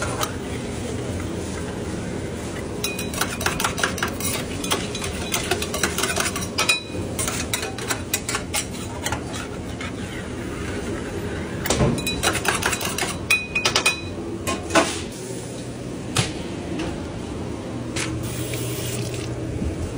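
A scraper rasping and clicking against a stainless steel flat-top griddle and its grease trough in quick bursts of strokes, with a brief metallic ring on some hits, over a steady low hum.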